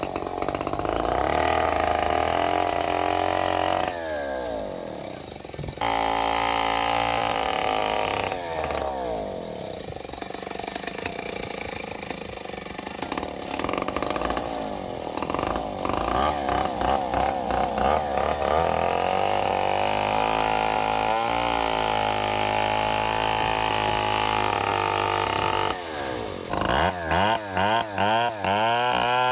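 Two-stroke chainsaw running under load, its pitch rising and falling as the throttle is worked. It drops back to a lower idle a few times, then gives a run of quick throttle blips near the end.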